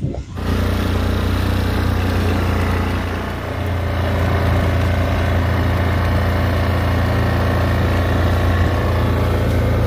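Small engine of a ride-on vehicle running steadily while it is driven, dipping slightly a few seconds in.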